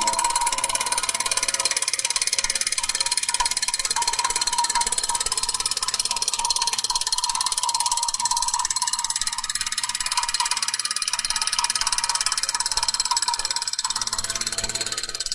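Tracked hydraulic anchor-installation rig running, its drive head driving a Spirafix spiral ground anchor into the ground, with a steady, fast, even pulsing.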